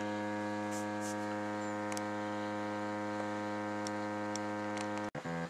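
Korg littleBits synth kit oscillator, patched through the filter module, sounding a steady low drone rich in overtones. About five seconds in it stops abruptly and a sequencer starts stepping it through a quick run of short notes.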